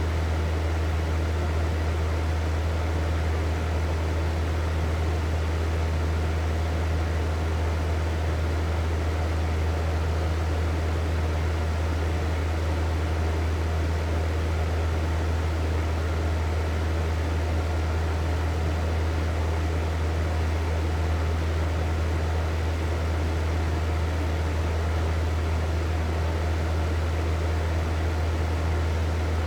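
Hair dryer running steadily: an even rush of blown air over a strong low motor hum, with no change in speed.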